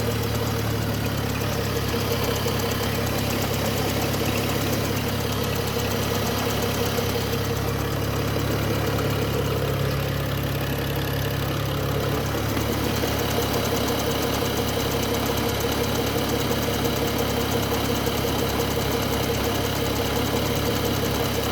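BMW N55 turbocharged 3.0-litre straight-six idling steadily while warming up after a cold start, the engine in which the owner hears a cold-start rattle.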